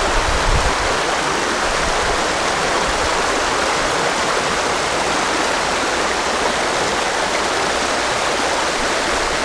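River water rushing over a shallow riffle of the West Gallatin River: a steady, even wash of moving water.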